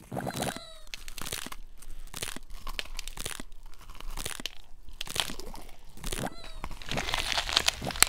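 Crunching, crackling chewing sound effects for a ladybird biting into and eating a greenbug aphid, running on in a dense irregular stream and growing louder near the end. A short squeak falling in pitch comes about half a second in.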